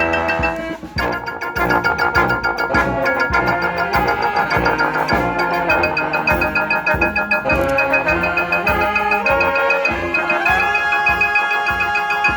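Brass band playing a tune: held horn lines over a steady drum beat, with a brief drop in the music about a second in.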